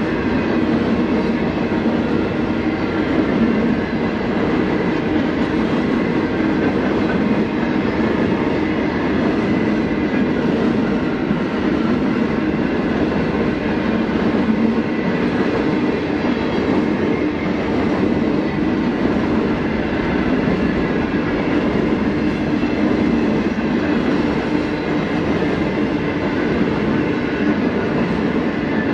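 Freight train of steel hopper wagons rolling past, a steady, continuous noise of wheels on the rails.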